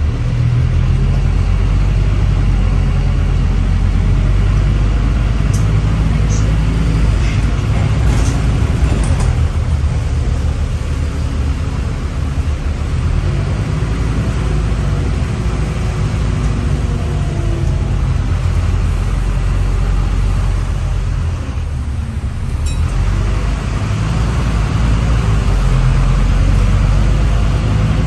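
Scania N270UD OmniDekka double-decker bus's five-cylinder diesel engine and road noise, heard from the upper deck as the bus drives along: a steady low rumble under a wash of tyre and body noise. The higher noise eases briefly about three-quarters of the way through, then builds again.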